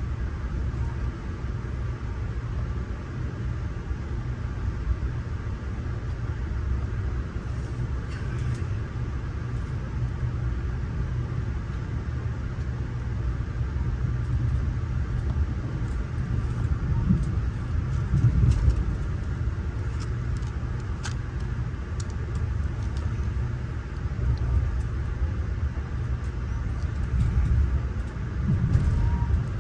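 Ride noise inside a Budd Amfleet passenger coach rolling on the rails: a steady low rumble of wheels and running gear, with a few sharp clicks and brief swells.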